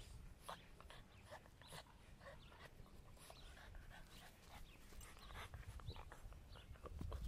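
Faint sounds of two puppies playing in dry grass: quick, scattered rustles and small noises over a low steady rumble.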